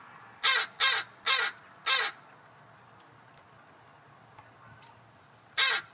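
Crows cawing: four loud, harsh caws in quick succession, a pause of a few seconds, then another caw near the end. The crows are calling for food.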